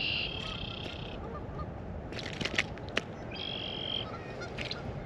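A bird calling outdoors: two drawn-out high calls, the first lasting about a second at the start and a shorter one a little past halfway, with a few sharp clicks in between.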